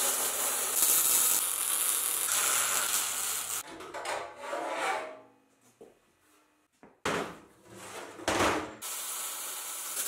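Angle grinder grinding the edge of a steel wood-chipper housing for the first three and a half seconds. Later come shorter scraping and rubbing sounds of sheet-steel parts being handled on a workbench.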